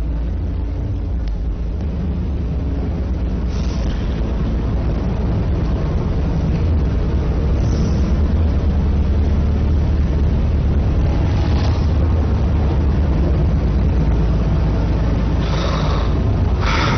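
A loud, low rumbling drone that slowly grows louder, with a soft hiss about every four seconds.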